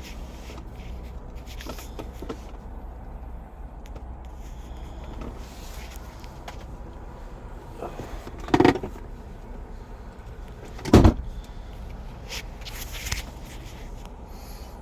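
Handling knocks: two loud short thumps about two and a half seconds apart, the second the louder, among lighter clicks and rustles, over a steady low rumble.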